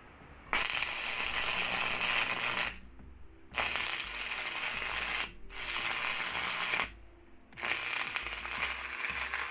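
Stick welder's arc crackling and hissing against sheet metal in four bursts of one to two seconds each, stopping and restarting between them.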